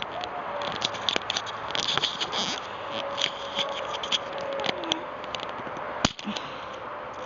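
Close handling noise: irregular small clicks, taps and scrapes, as of a camera being fitted onto and adjusted on a plastic tripod.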